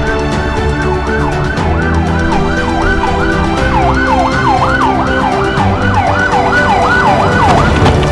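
Police car siren on a fast yelp, its pitch sweeping up and down about two to three times a second, over background music with a steady bass.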